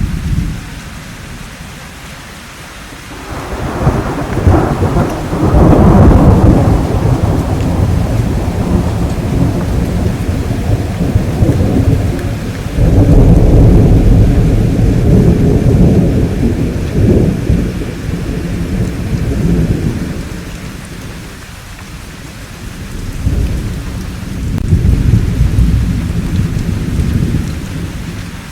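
Thunderstorm: steady rain with rolling thunder. Long, deep rumbles swell and fade, the loudest from about three seconds in and again from about twelve seconds in, with a smaller one near the end.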